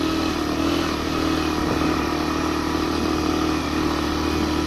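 Suzuki GN 125's single-cylinder four-stroke engine running steadily at high revs as the motorcycle climbs with a passenger. The revs are held high, around 5000 to 7000 rpm, to keep the engine from stalling in the thin air at high altitude.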